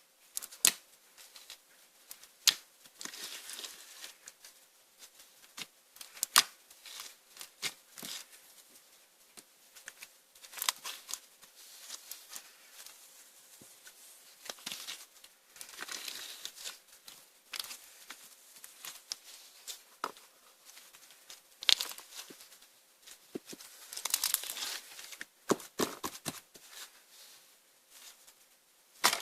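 Hands squishing and stretching clear slime mixed with crushed magic sponge, giving irregular sharp snaps and pops among short bursts of crinkly rustling.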